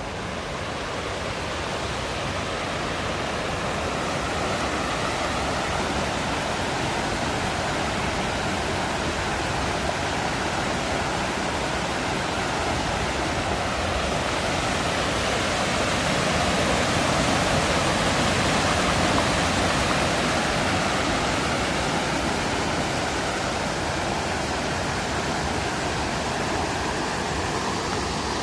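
Water spilling over a small concrete dam weir at a lake outlet: a steady rushing noise that builds over the first few seconds and is loudest a little past the middle.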